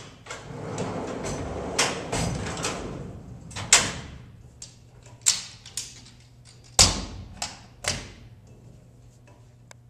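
The 1,000-pound-capacity pull-out parts drawer of a steel truck service body rolling shut on its slides for about three seconds, then a string of sharp metal clunks and clicks as the diamond-plate aluminum rear door is closed and latched.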